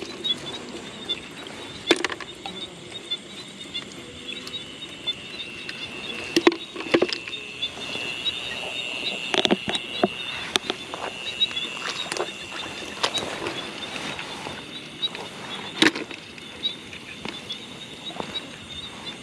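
Night insects trilling steadily, with a high pulsing chirr under it; the trill is strongest in the middle. A few sharp clicks and knocks stand out about 2, 6, 9 and 16 seconds in.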